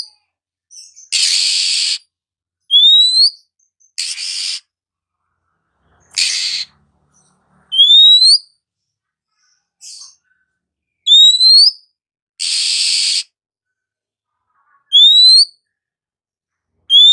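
Oriental magpie-robin (kacer) calling: short rising whistles, five in all, alternating with four harsh, hissing rasps, each call under a second with clear gaps between.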